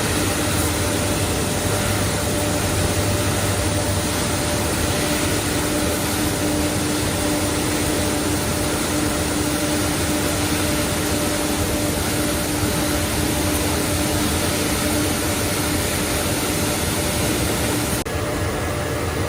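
Industrial pallet basket washing machine running: a steady mechanical rush of noise with a steady hum under it. About eighteen seconds in the sound changes abruptly, the higher hiss dropping away.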